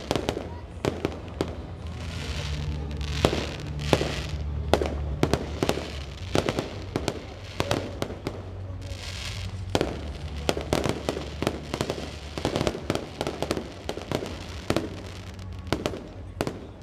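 Aerial fireworks bursting in an irregular string of many sharp bangs and pops.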